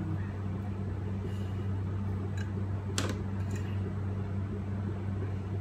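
Steady low electrical hum of a kitchen appliance or fan motor. Over it come a few light clicks as a glass sauce bottle is opened and handled, the sharpest about three seconds in.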